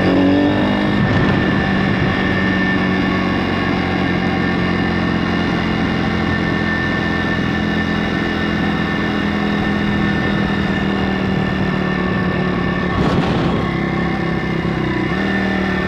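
Stomp pit bike's YX 160cc single-cylinder four-stroke engine running at mostly steady cruising revs, with a short rise in revs about a second in and a brief rush of wind or passing noise near the end. The engine is running nicely with its valve clearances freshly adjusted.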